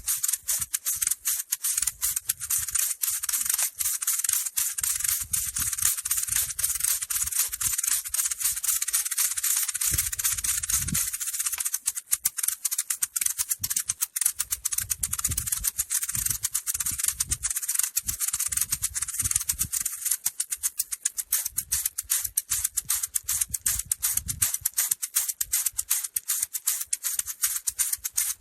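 Maracas shaken fast in a dense, continuous rattle. About twelve seconds in, the shaking breaks into more distinct separate shakes.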